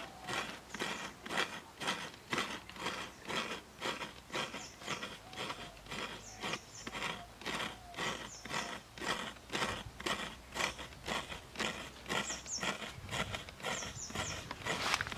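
Fresh coconut meat being scraped by hand from a halved coconut on a serrated grater: a rhythmic rasping, about two strokes a second.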